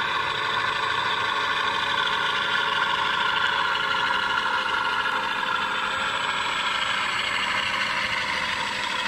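Radio-controlled T-28 Trojan model airplane's motor running steadily at low throttle while the model taxis on the runway.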